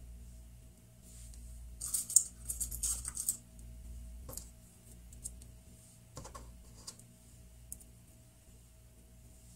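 Small plastic googly eyes clicking and rattling, a quick flurry of light clicks about two seconds in as they are handled, then a few single clicks as they are pressed onto a piece of modelling clay.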